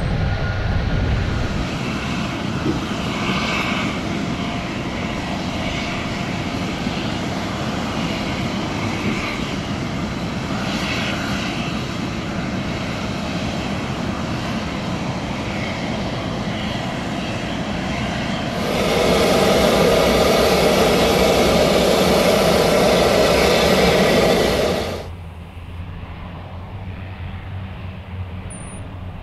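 Airbus A330MRTT's Rolls-Royce Trent 700 jet engines running at low power as the aircraft taxis, a steady engine drone with faint whining tones. About two-thirds through, the engine noise is much louder and fuller for roughly six seconds, then cuts off suddenly to a quieter distant engine drone.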